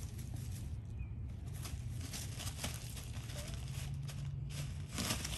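Basenji puppy digging in pine straw, her paws scratching and rustling through loose pine needles on a plastic-wrapped bale in a run of quick strokes, with a louder rustle near the end.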